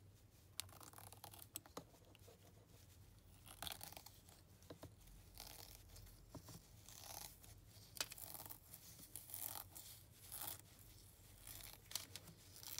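Scissors snipping and cutting through a soft banana squishy, a faint series of irregular snips with the rasp of the material tearing between the blades.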